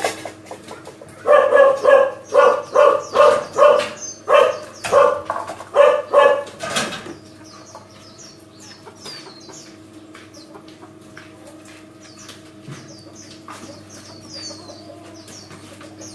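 A dog barking about ten times in quick succession through the first half, then small birds giving short, high, falling chirps for the rest.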